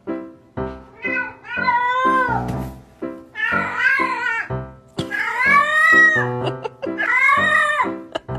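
A domestic cat meowing in a string of long, drawn-out calls that waver up and down in pitch, so that they sound almost like human talk.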